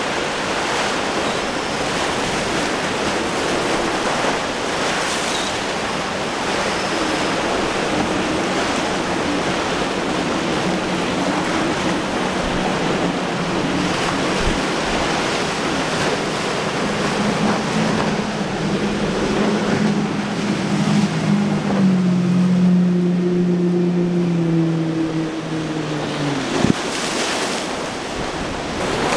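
Steady rush of surf and wind noise on the microphone. From about halfway, a center-console boat's outboard engines drone in, grow louder and then drop in pitch and fade near the end as the boat runs past through the inlet.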